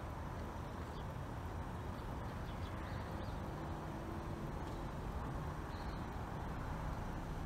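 Steady outdoor street ambience: a low rumble of traffic with a faint hiss, and a few faint high chirps around the middle and near the end.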